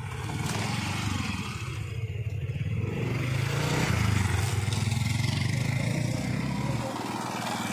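A motor vehicle's engine passing close by, growing louder to a peak about four seconds in and fading again near the end.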